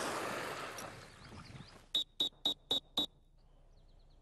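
A training whistle giving five short, high toots about four a second, the multiple-toot recall signal calling the retriever in. Before it, a rushing noise fades out over the first couple of seconds.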